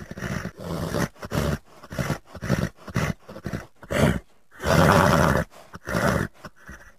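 Creature vocal sound effects: a run of short, harsh animal-like calls and grunts, with one longer, louder cry about five seconds in.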